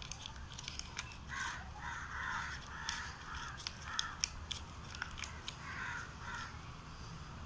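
Paper crinkling and crackling in small clicks as a little paper packet is folded around food to parcel it. Over it a bird calls repeatedly, in a quick run of harsh calls from about one to three seconds in and a few more later.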